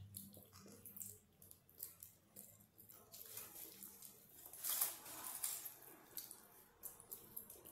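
Close mouth sounds of someone biting into and chewing a shawarma wrap: soft wet clicks and smacks, with a louder stretch about five seconds in.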